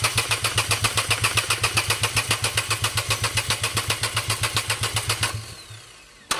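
Renault Kwid three-cylinder petrol engine being cranked on the starter motor in an even pulsing rhythm, about five or six pulses a second, without catching: the long-starting fault that the mechanic traces to dead fuel injectors. The cranking stops a little past five seconds in and starts again just before the end.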